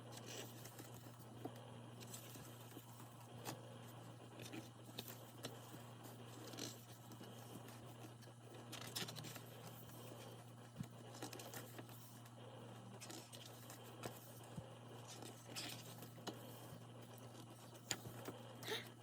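Faint rustling and light taps of paper and card being handled, as an album's booklet and photocards are leafed through, with scattered small clicks over a steady low hum.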